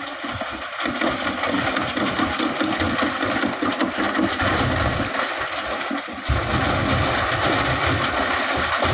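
Excavator loading sand into a dump truck: its diesel engine working with a loud rushing noise over a pulsing low rumble, which steps louder about six seconds in.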